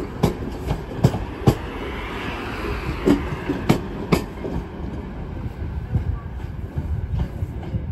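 Passenger train moving through the station: a steady low rumble with irregular sharp clicks and knocks from the wheels crossing rail joints, most of them in the first half.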